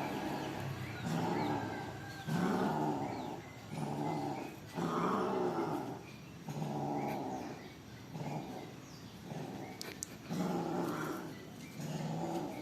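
Cat giving a string of long, low yowls, about nine calls of roughly a second each with short pauses between: the caterwauling that goes with cats mating.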